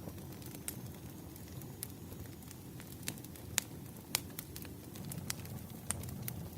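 Wood fire crackling: a steady low rumble of burning logs with irregular sharp pops, about a dozen, the loudest near the middle.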